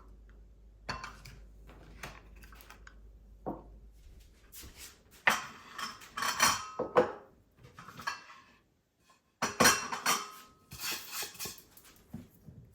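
Dishes and cutlery clinking and clattering as a table is cleared after a meal: a string of separate knocks, busiest in two stretches around the middle and near the end.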